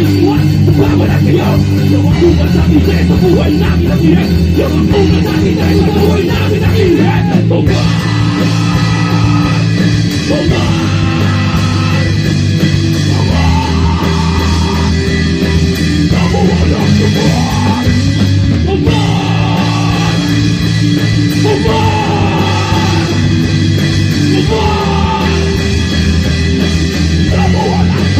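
Live rock band playing loud, with distorted electric guitar, bass and a drum kit, and a vocalist singing into a microphone; the vocal line comes in about eight seconds in.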